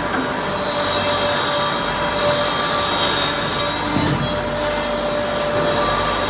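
Helix 80S wood shaving machine running steadily, a constant hum and dense hiss as it cuts wood into bedding shavings, with several swells of high hiss lasting about a second each as the shavings are worked.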